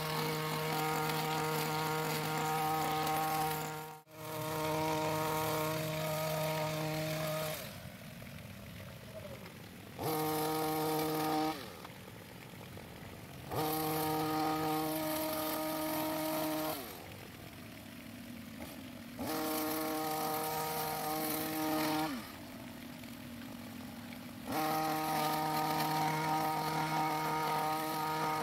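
STIHL petrol hedge trimmer revved to full cutting speed in five bursts of one to several seconds. Between bursts the engine drops back to idle, with the pitch falling each time the throttle is released.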